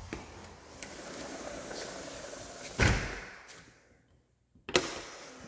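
Sliding glass patio door rolled along its track and banging shut about three seconds in, then a second sharp knock near the end.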